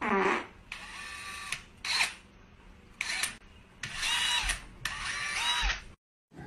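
Cordless drill motor run in about six short bursts, each lasting under a second, whining up when triggered and winding down on release.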